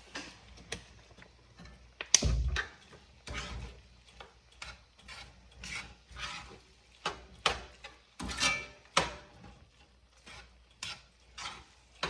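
Kitchen handling noises: irregular clicks, knocks and rustles, with a heavier thump about two seconds in.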